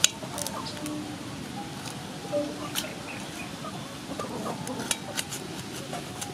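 Knife cutting pickled mustard greens on a metal tray, with scattered sharp clicks and clinks where the blade strikes the tray.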